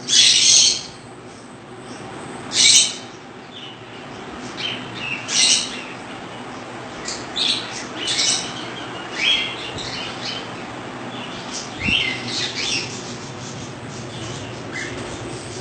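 Caged pet birds calling: short, shrill high-pitched calls at irregular intervals every second or two, over a steady low room hum.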